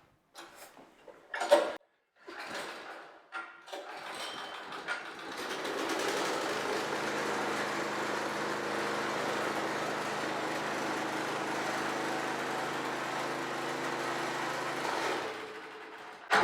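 Generac 2800B two-stage snowblower's gasoline engine started for the first time after assembly: a few brief noises, then the engine catches about four seconds in and runs steadily for about ten seconds before it is shut off and dies away.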